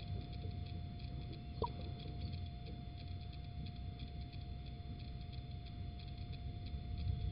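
Nest-box camera microphone sound: a steady electrical hum over a low rumble, with faint scattered ticks and one short rising squeak about one and a half seconds in.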